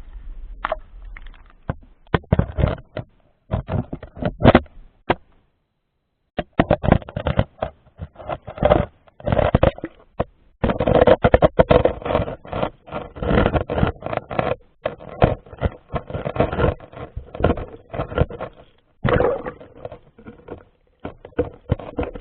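Irregular splashing and sloshing of water, with many short knocks and scrapes in quick succession and a brief break a little over five seconds in.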